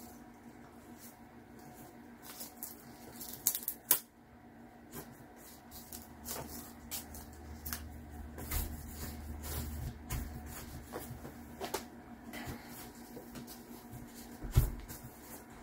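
Hands rubbing and pressing new wallpaper seam tape down onto an RV interior wall panel: soft rubbing and handling noise with scattered light taps, a few sharper ones, over a faint steady hum.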